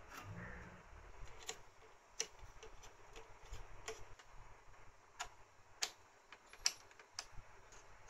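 Faint, irregular clicks and taps of small metal slider parts being handled and test-fitted by hand: a lead screw, a brass nut and aluminium bearing mounts on a wooden board.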